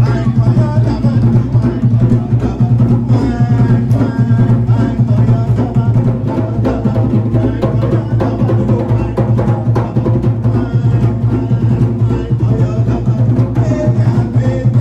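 Music with drums and percussion: a steady, dense drum rhythm over a heavy bass.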